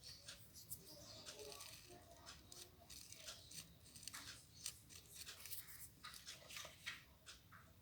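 Scissors cutting by hand: faint, irregular snips and rustles of the blades and material.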